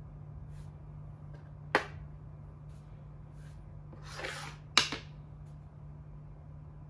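Makruk (Thai chess) pieces knocking on the board as a piece is moved: a sharp click about two seconds in, then a short scrape of a piece sliding across the board and a second, louder click near five seconds.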